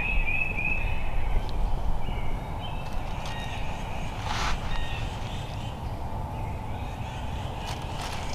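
Outdoor woodland ambience: a steady low rumble with faint bird calls, a brief rustle about four and a half seconds in, and a few light clicks near the end.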